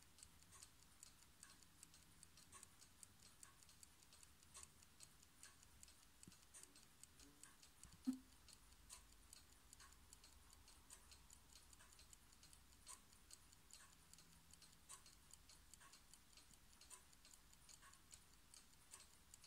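Faint, rapid ticking of a clock's lever platform escapement as the escape wheel and pallet lever step the balance wheel, several even ticks a second. A single louder knock sounds about eight seconds in.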